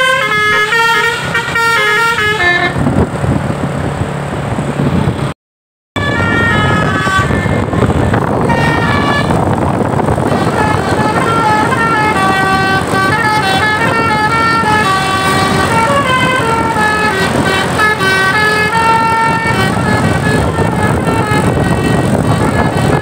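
Basuri telolet multi-tone bus air horn playing quick melodies of stepped notes over the bus's engine and road noise. The horn stops about two and a half seconds in, the sound cuts out completely for half a second around five and a half seconds, then the horn melodies start again and play until about three seconds before the end, leaving only engine and road noise.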